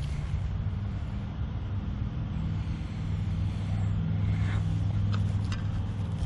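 A low, steady motor-vehicle engine hum that grows louder about halfway through, with a few faint clicks.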